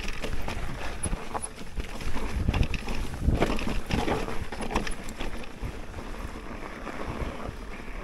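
Mountain bike riding down a snowy trail: wind buffeting the microphone and irregular knocks and rattles from the bike over the bumps, easing off somewhat in the second half.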